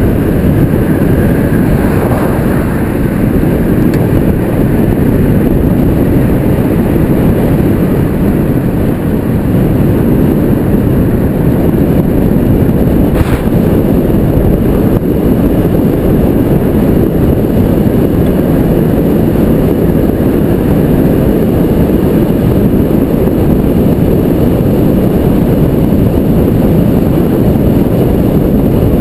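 Wind buffeting a helmet-mounted camera's microphone on a road bike moving at speed: a loud, steady low rumble, with a single short click about 13 seconds in.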